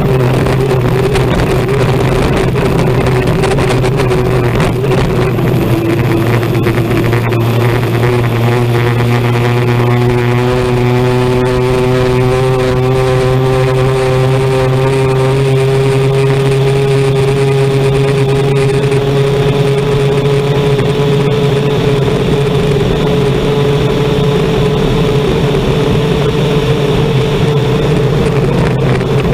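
Unlimited hydroplane's Lycoming T55 gas turbine running flat out at racing speed, heard onboard over a steady rush of wind and water spray. The engine's tone climbs slightly in pitch about six to twelve seconds in, then holds steady.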